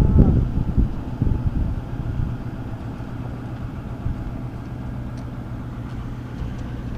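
A vehicle engine idling with a steady low hum, a brief voice right at the start.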